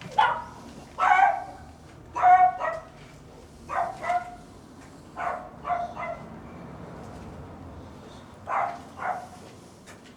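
A dog barking repeatedly, mostly in quick pairs of barks, with a longer pause before a last pair near the end.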